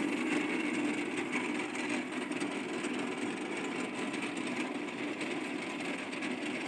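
Belt-driven electric chaff cutter running steadily as a steady mechanical noise, its blades chopping straw fed into the chute.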